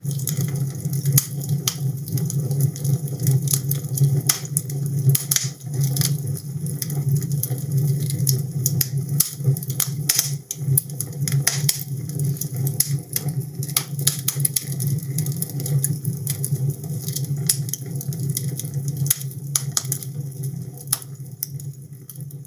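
Open fire crackling and popping in a stone fireplace, with irregular sharp snaps over a steady low hum.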